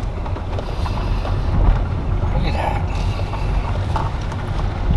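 Car cabin noise while driving slowly over a rough dirt road: a steady low rumble of tyres and suspension, with creaks and rattles from the car's interior.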